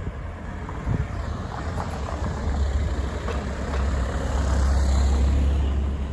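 A car driving slowly past close by. Its engine and tyre rumble grow louder to a peak about five seconds in, then ease off.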